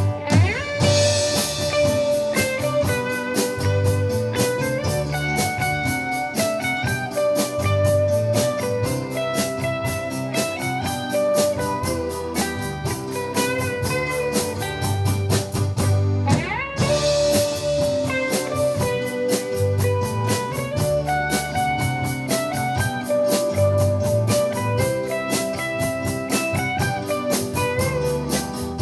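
A live rock band playing an instrumental break with no vocals: a lead melody played over bass and a drum kit at a steady beat.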